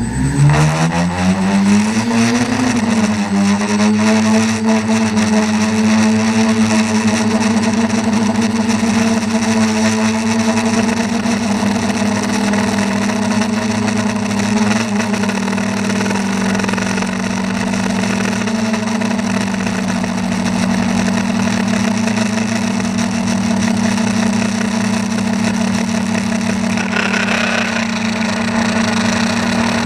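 A motor spins up over the first two to three seconds, then runs steadily at a constant pitch, with wind noise on the microphone.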